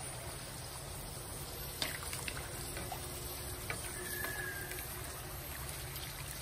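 Puffed dough rounds deep-frying in a wok of hot oil: steady sizzling and bubbling, with a few light clicks of the wooden spatula against the wok and dough.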